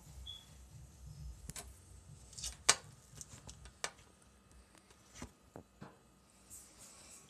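A few scattered light clicks and knocks of handling in a kitchen, the sharpest about two and a half seconds in, over a faint background.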